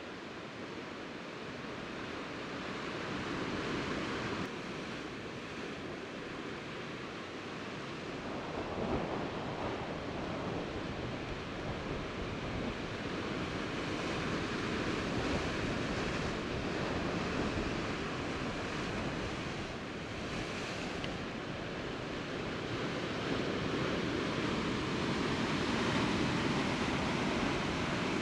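Sea surf washing against rocks, swelling and easing every few seconds. From about eight seconds in, wind buffets the microphone with a low rumble.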